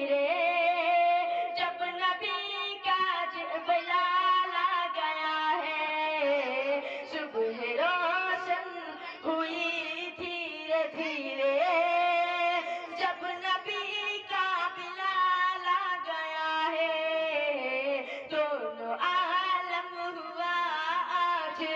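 A boy singing a naat, an Islamic devotional poem in praise of the Prophet, solo and without instruments into a microphone, with long held notes that waver and bend in pitch.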